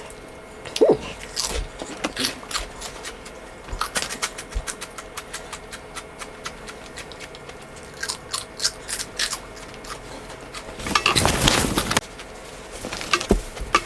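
Pork rinds (chicharrones) being crunched and chewed: many sharp crunches in quick succession, sped up, with a longer, louder burst about eleven seconds in.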